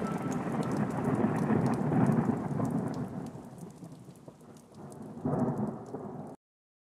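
Thunderstorm sound effect: thunder rumbling over rain, swelling about two seconds in and dying down, then a second rumble near the end before it cuts off abruptly.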